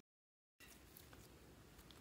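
Near silence: a dead-silent gap for about the first half second, then only faint room tone.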